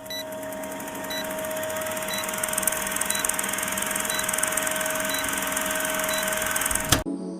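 A steady whirring machine noise with a short high beep about once a second, cut off suddenly near the end.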